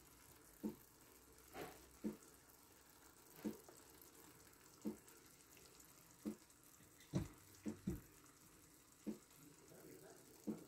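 Thick tomato-based tagine sauce simmering on the burner: a faint sizzle with soft wet pops about every second and a half, three in quick succession about two-thirds of the way through.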